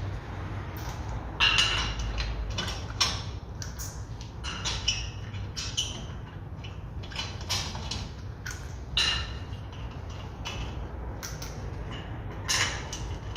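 Irregular metallic clinks and knocks over a low steady hum, a few sharper ones standing out: a car wheel being fitted back onto the hub and its bolts put in by hand.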